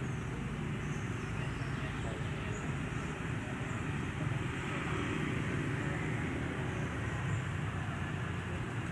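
Steady outdoor background noise: an even low rumble with hiss and no distinct event, like distant traffic.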